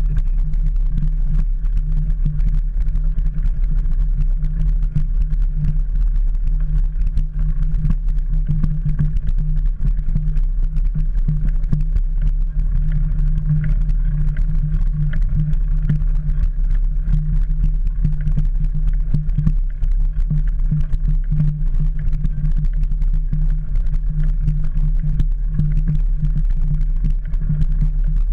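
Steady low rumble of wind and riding vibration picked up by a handlebar-mounted camera as a mountain bike rolls along a gravel track.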